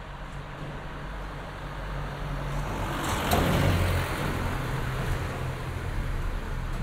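Street traffic: a motor vehicle's engine hums steadily close by, and a passing vehicle's engine and tyre noise swells to a peak about three seconds in, then eases.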